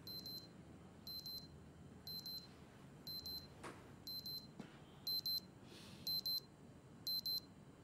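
Casio digital wristwatch alarm going off: short, high double beeps about once a second, louder over the last three.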